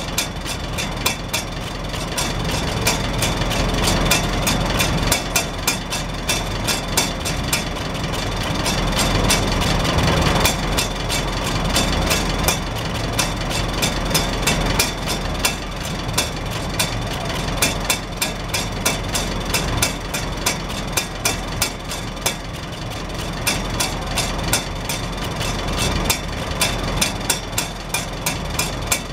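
Farmall Super H tractor's four-cylinder engine idling steadily out of a vertical chrome exhaust stack, with a fast, even stream of sharp ticks as the flapper rain cap on top bobs and taps on the exhaust pulses.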